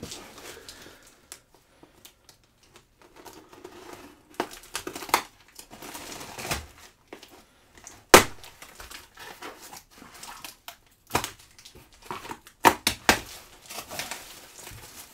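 Cardboard parcel being opened by hand: eBay-printed plastic packing tape ripped and peeled off and the box flaps pulled open, in scattered rips, scrapes and crinkles. The loudest is a sharp snap about eight seconds in.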